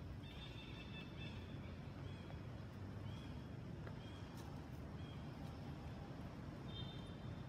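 Short, high-pitched animal calls, each under a second, repeated about once a second, the longest near the start and another near the end, over a low steady outdoor rumble.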